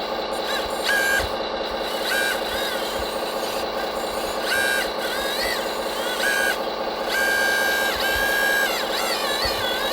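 Radio-controlled model machinery running: a steady electric motor and gearbox hum, with a higher whine that starts and stops several times, longest near the end, as the model's drives and hydraulics are worked.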